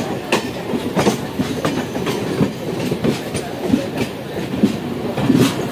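Indian Railways passenger coaches rolling past close by as the train pulls into the station, wheels clicking and clattering over the rail joints several times a second over a steady rumble.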